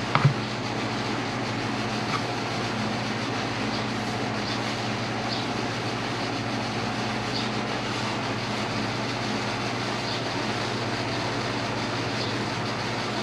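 Steady mechanical hum, even in level throughout, with a couple of sharp knocks just after the start.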